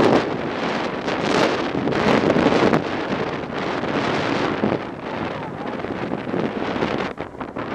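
Wind buffeting the microphone of an ATV-mounted camera while the ATV drives through shallow floodwater, water splashing and spraying off the tyres, with the vehicle's running underneath.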